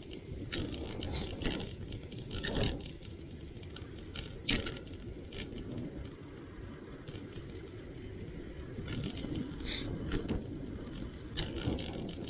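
Bicycle riding over cracked asphalt: a steady rumble of wind on the microphone and tyre noise, with short clicks and rattles from the bike every few seconds as it rolls over the cracks.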